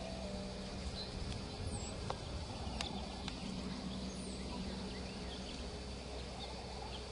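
Steady outdoor background noise with a low hum, faint short high chirps of small birds here and there, and a few soft isolated clicks.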